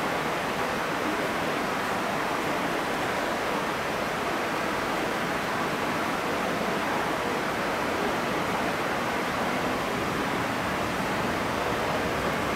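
Steady, even rushing noise of an underground metro platform, unchanging throughout, with no train movement or announcements standing out.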